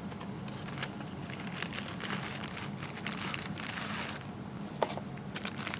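Rustling and crinkling of cardboard and plastic packaging as a garage door sensor kit is opened and handled, with irregular small clicks and crackles, busiest midway, over a steady low hum.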